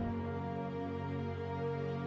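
Slow, sad instrumental background music with soft held notes.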